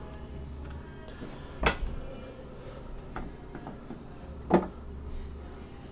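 Trading cards being handled and set down: two sharp light taps about three seconds apart, with a few fainter clicks between, over a low steady hum.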